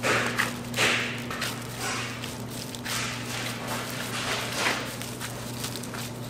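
Steady hum of bakery machinery under a series of short brushing and swishing handling noises, the loudest near the start.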